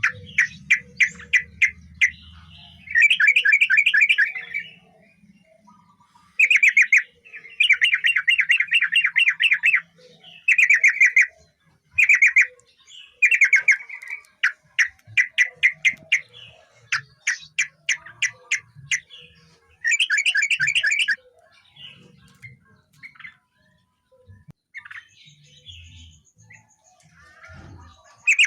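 Yellow-vented bulbul (trucukan) singing: repeated bursts of rapid chattering notes, each a second or two long with short pauses between, falling to a few faint notes over the last several seconds.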